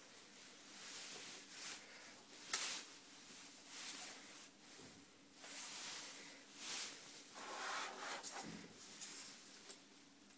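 Faint rubbing and brushing of hands moving a fishing line and a plastic ruler over a tabletop, in several short scrapes a second or two apart.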